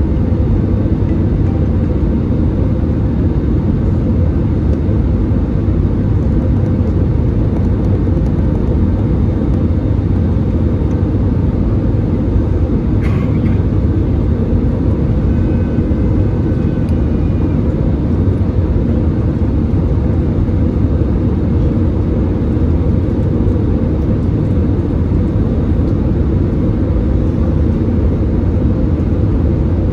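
Steady low cabin drone of an Airbus A320-216 descending: its CFM56 engines and the rushing airflow, heard from inside the cabin at a window seat over the wing.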